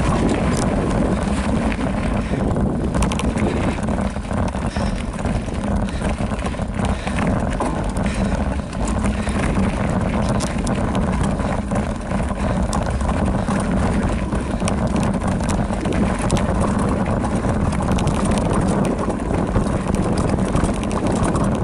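Wind buffeting the microphone over the steady rumble of a Specialized Rockhopper mountain bike's tyres rolling downhill on a dirt trail, with frequent sharp rattles and clicks as the bike goes over bumps.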